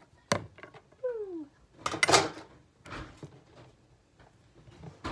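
Onion slices being tipped and pushed off a plastic cutting board into a baking dish: a sharp knock at the start, a short pitched sound falling in pitch about a second in, and a loud scraping rustle about two seconds in, then a few lighter knocks.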